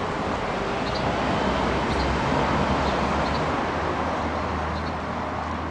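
Outdoor city traffic noise: a steady rushing wash of road traffic with a low rumble, swelling a little in the middle and easing off toward the end, with a few faint short high chirps.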